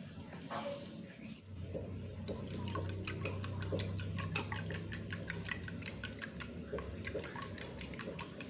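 Eggs being beaten loose in a bowl: the utensil clinks against the bowl in a quick, steady rhythm, about five strokes a second, starting about two seconds in.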